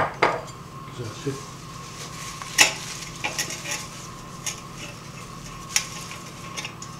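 A fluted bundt cake tin being greased by hand with a wad of paper: soft rubbing inside the tin, with scattered light taps and clicks as the tin shifts on the counter, the sharpest about two and a half seconds in. A faint steady hum lies underneath.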